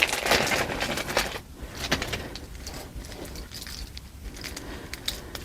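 Rustling and light clicking of earrings being handled and taken out of their packaging. It is busiest for about the first second and a half, then thins to a few soft clicks.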